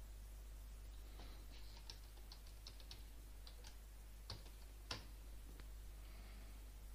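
Faint clicking on a computer keyboard: a quick, irregular run of light key taps, then two louder clicks about four and five seconds in.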